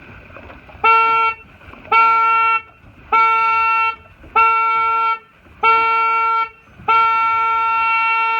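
Race-start horn sounding five short blasts about a second apart, then one longer blast near the end: a countdown signal ending in the start signal of a sailing race.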